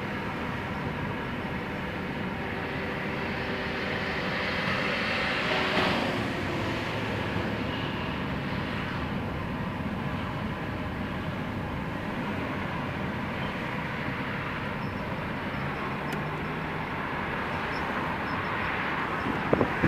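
Driving noise of a BMW E46 on the move: steady road and running noise with a faint steady whine through it, swelling briefly about five to six seconds in. The owner reports a strange sound that comes each time after the brake is pressed.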